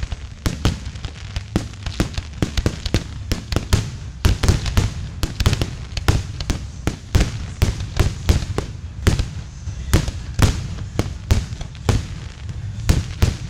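Aerial fireworks shells bursting in rapid succession: a steady barrage of sharp bangs and cracks, several a second, overlapping one another.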